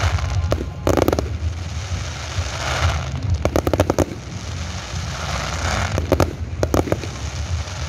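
Aerial firework shells bursting in a display: sharp bangs come singly and in quick clusters, with crackling from glittering stars between them and a steady low rumble underneath.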